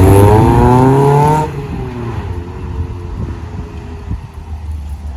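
1992 Mazda Miata's 1.6-litre four-cylinder engine accelerating, its note rising in pitch. After about a second and a half it drops sharply to much quieter, steady engine and road noise.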